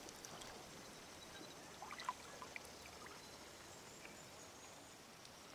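Very faint river water trickling and lapping around a canoe, with a few small drips about two seconds in.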